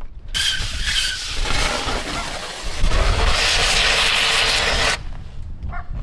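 Oxygen-fed magnesium exothermic cutting rod burning: a loud, harsh hiss that starts just after the beginning, grows louder about three seconds in, and stops abruptly near five seconds.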